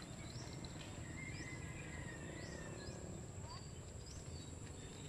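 Outdoor ambience: scattered short rising bird chirps and a longer falling call about two seconds in, over a steady high insect whine and a low rumble.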